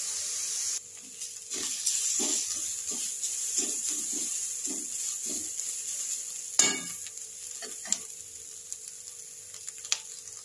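Grated carrots sizzling in ghee in a metal kadhai while a metal ladle stirs them, scraping across the pan in short strokes about every half second. There is a sharper clank of the ladle on the pan about six and a half seconds in, and a few lighter knocks after.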